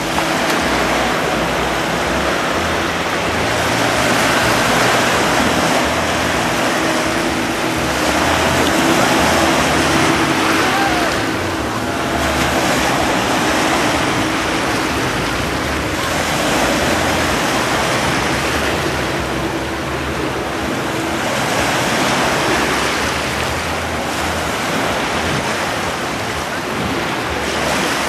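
Sea waves washing, with a speedboat's engine running steadily under the surf noise until about three-quarters through.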